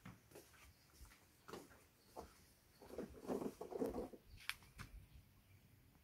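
Kitten's claws scratching and scrabbling as it climbs a pull-down projector screen, in scattered light scratches with a denser stretch of scraping and rustling in the middle and a sharp click after it.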